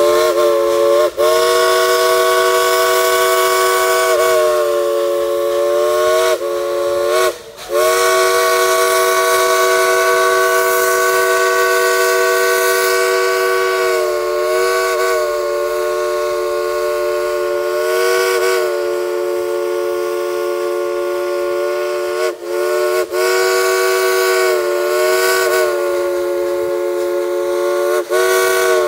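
Dollywood Express steam locomotive's chime whistle blowing a long, loud chord of several notes, held for many seconds at a time with a few brief breaks, the pitch sagging as each blast opens and closes.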